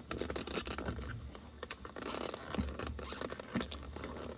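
Cardboard and plastic packaging scraping and rustling, with scattered small clicks, as a tight-fitting plastic-wrapped tray is worked out of a box.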